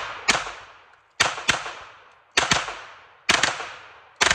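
Century Arms Draco 9mm pistol with a binary trigger firing shots in quick pairs, one on the pull and one on the release, about one pair a second. Each shot is a sharp crack that trails off in echo.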